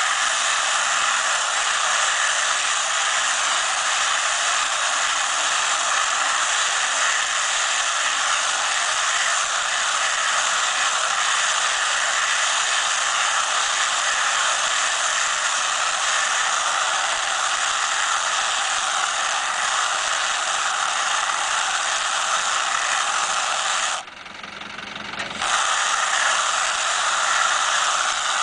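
Tractor-mounted round-bale wrapper running with the tractor, turning a haylage bale and winding stretch film around it: a steady mechanical hiss and whir. Near the end the sound drops away sharply for a second or so, then comes back.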